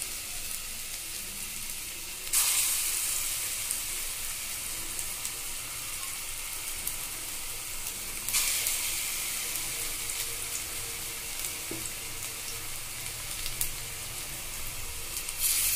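Potato and onion pakoras frying in shallow hot refined oil, a steady sizzle. It flares up loudly each time another flattened ball of batter is laid into the oil: about two seconds in, about eight seconds in, and again near the end.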